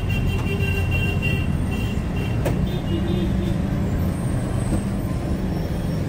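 Steady rumble of road traffic, heavy vehicles such as trucks and buses running, with faint high tones coming and going and one sharp click about two and a half seconds in.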